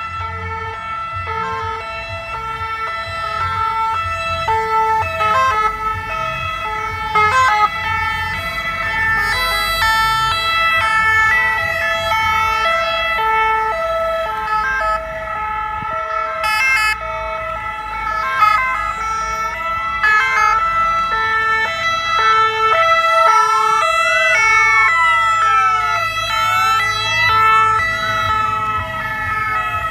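Sirens of a convoy of ambulances and police vans passing, several two-tone sirens sounding at once, each stepping back and forth between two notes. From about twenty seconds in, a rising and falling wail joins them.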